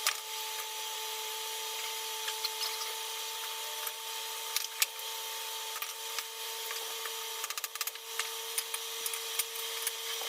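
Forge blower running with a steady, even hum, with scattered sharp clicks and crackles over it and a quick run of clicks about three-quarters of the way through.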